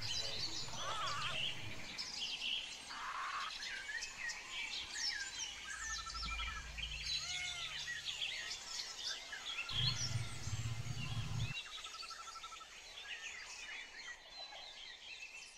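Several small birds chirping and twittering in quick, overlapping high calls, with a low hum that comes in briefly about six seconds in and again around ten seconds in.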